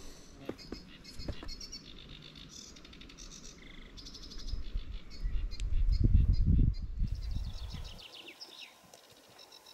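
Small birds chirping and twittering repeatedly in short high notes. A low rumbling noise swells for a couple of seconds past the middle and is the loudest sound.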